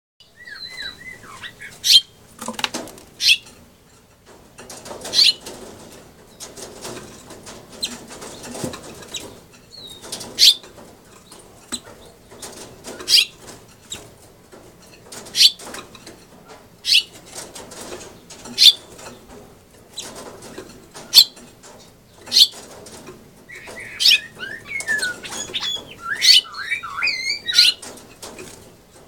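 Caged male house finch giving short, sharp chirps every couple of seconds and fluttering about the cage, with quick warbling song phrases at the start and again near the end.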